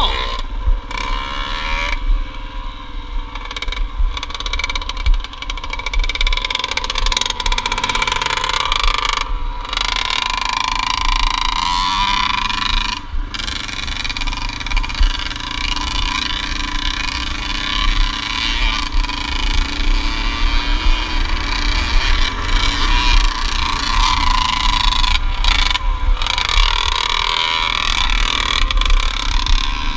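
Yamaha TT-R230 dirt bike's four-stroke single-cylinder engine running under way, heard from a camera on the bike with heavy wind rumble on the microphone. The sound briefly drops out a few times.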